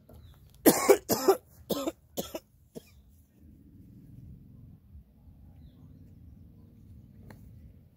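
A person coughing, a few sharp coughs in the first three seconds, then only a faint low background rumble.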